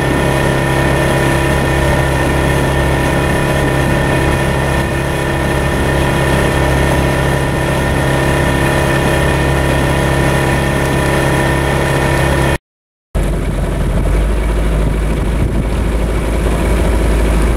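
Motorboat engine running steadily at towing speed, with water rushing. The sound cuts out for a moment about two-thirds of the way through and comes back with a deeper, stronger hum.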